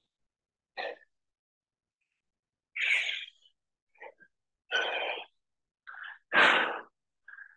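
A man breathing out hard in short, forceful puffs during pike push-ups, about seven breaths roughly a second apart, the loudest near the end.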